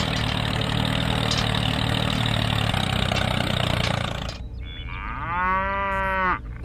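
Tractor engine running for about four seconds, then stopping. About a second later a cow moos once, a drawn-out moo lasting just over a second.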